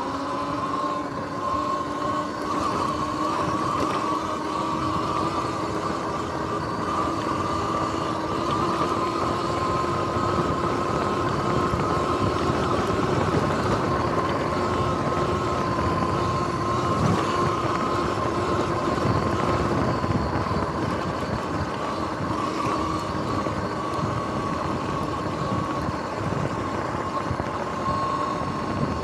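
Sur-Ron X electric dirt bike riding at a steady pace: a steady electric motor and drivetrain whine that drifts slightly up and down in pitch, over a constant rush of wind and tyre noise.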